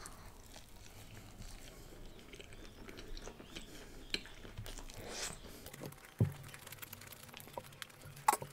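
A person chewing a big mouthful of egg paratha roll with paneer and chicken: soft crunching and small wet mouth clicks, with a single low thump about six seconds in.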